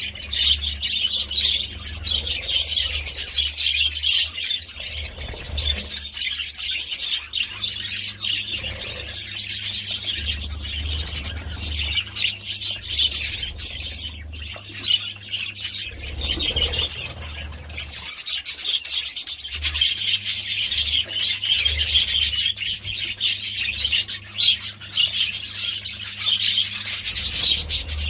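A flock of budgerigars chattering and chirping continuously, many birds at once, over a low steady hum.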